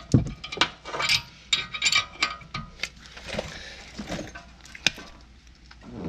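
Irregular metallic clicks and clinks of hand tools on the rear brake caliper bracket as it is bolted back onto the hub.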